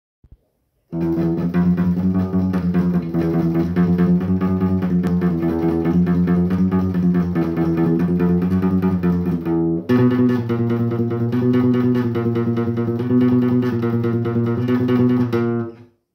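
Guitar music of low, plucked notes in a fast repeating riff. The riff changes to a new pattern about ten seconds in, and the playing cuts off just before the end.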